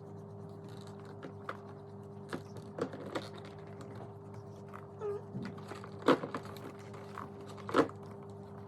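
Scattered clicks, knocks and crinkles from plastic parts and packaging being handled, with two louder knocks about six and eight seconds in, over a steady low hum.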